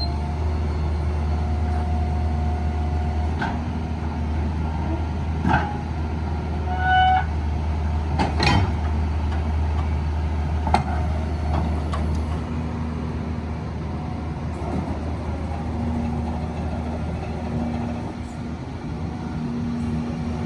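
Doosan DX170W wheeled excavator's diesel engine running steadily, with a few sharp knocks and a brief tone about seven seconds in; the engine's low hum gets quieter about twelve seconds in.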